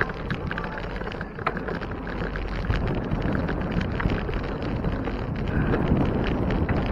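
Wind rushing over the microphone of a camera on a moving bicycle, with many light clicks and rattles from the bike running over brick pavers; the wind grows louder near the end.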